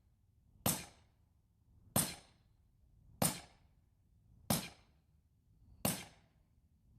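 Sledgehammer driving a felling wedge into the cut of a tree: five evenly spaced sharp strikes, about one every second and a quarter, each with a brief ring. The wedge is going in only a little but is opening up the gap in the cut.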